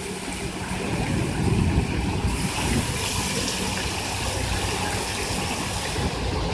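Water sprays and jets of a water play area running, a steady rushing hiss that turns brighter and hissier about two seconds in.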